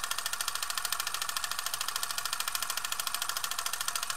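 Film projector running: a steady, rapid, even mechanical clatter with a hissy top.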